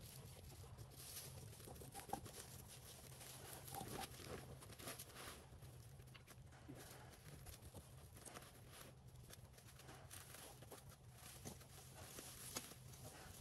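Near silence: faint, irregular clicks and rustles over a low steady hum.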